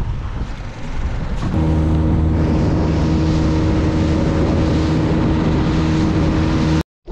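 Small fishing boat's outboard motor running at speed, with wind and water rushing past. From about a second and a half in, a steady engine drone holds at one pitch, then cuts off suddenly just before the end.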